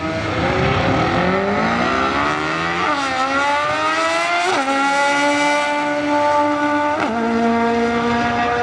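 Import drag cars' engines at full throttle down the strip, revving up and shifting up three times, about 3, 4.5 and 7 seconds in, with the pitch dropping at each shift.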